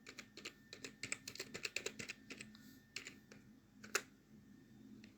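Typing on a computer keyboard: a quick run of keystrokes for about two and a half seconds, a few scattered ones after, and one louder key press about four seconds in.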